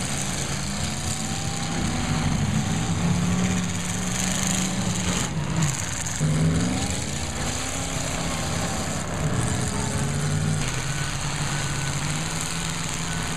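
Demolition derby cars' engines running and revving, their pitch rising and falling again and again.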